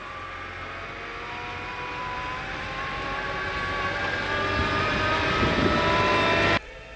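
Hitachi ZW40 compact wheel loader's diesel engine running under load, growing steadily louder as the machine pushes snow toward and past the listener. The sound cuts off suddenly near the end.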